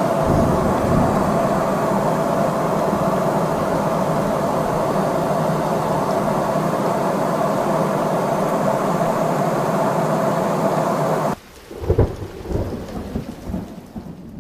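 Steady roar of a Boeing 777 airliner's cabin in cruise flight, engine and airflow noise with a steady hum running through it. It cuts off suddenly about three seconds before the end, leaving a few dull low thumps.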